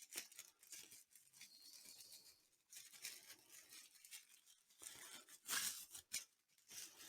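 Faint rustling and handling noises of packaging and boom-arm parts being unpacked, with a louder rustle about five and a half seconds in.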